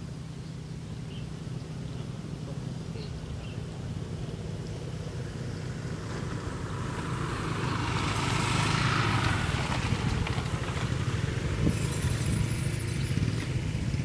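A motor vehicle's engine hums steadily. About halfway through, a louder rush builds, peaks and eases off as the vehicle passes by.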